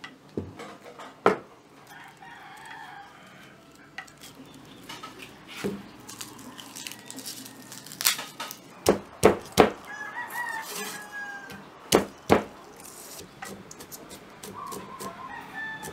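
A heavy knife knocking sharply on a wooden chopping board as garlic is crushed and chopped, in scattered strokes, the loudest in two quick clusters past the middle. Chickens call in the background, with a rooster crowing about ten seconds in and again near the end.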